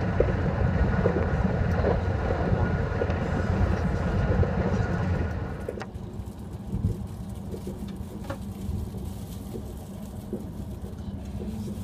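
Passenger train running at speed, heard from inside the carriage: a steady rumble of wheels on the rails. A little before halfway it drops to a quieter rumble after a sharp click.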